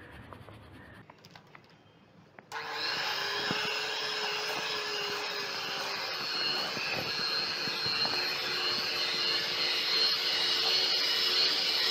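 Faint sifting of icing sugar through a metal sieve, then an electric hand mixer switches on abruptly about two and a half seconds in and runs steadily, its beaters working icing sugar into butter and cocoa for chocolate buttercream in a plastic bowl.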